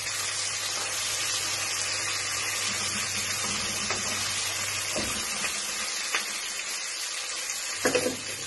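Semolina-coated fish pieces shallow-frying in hot oil in a pan, a steady sizzle, with a few light scrapes and taps of a metal spatula as the pieces are turned and pressed, and a louder knock near the end.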